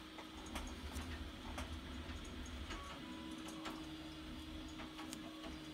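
Faint handling noise: scattered light clicks and taps as fingers press a strip of sticky-backed felt onto a drone's carbon-fibre arm, over a low steady hum.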